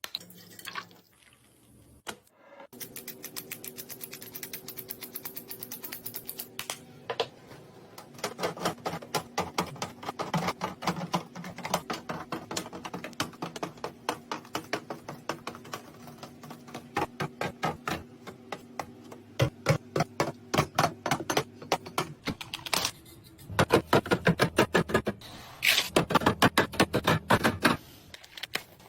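Rapid light clicks and clacks, several a second, like small hard items being handled and set down, over a steady low hum. The clicking grows louder and denser in the last few seconds.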